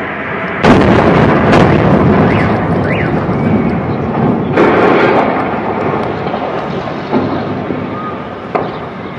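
Fuel tank explosion at a gas station: a sudden loud blast a little under a second in, followed by a long rumble, with a second blast about four and a half seconds in. The rumble slowly fades, with a few smaller sharp bangs near the end.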